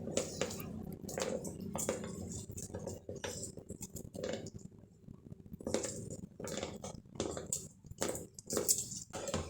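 A lemon being squeezed for its juice in a kitchen, with scattered small clinks and taps of utensils and dishes at irregular intervals.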